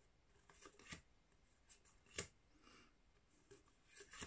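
Faint rustling and flicking of Pokémon TCG code cards, thin printed cardboard, handled and slid apart in the fingers, with a few short sharp snaps; the loudest comes a little after two seconds in.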